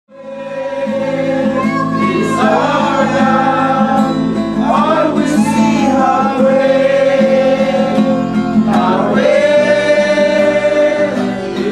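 Background music: a song with sung melody and instrumental accompaniment, fading in over the first half second.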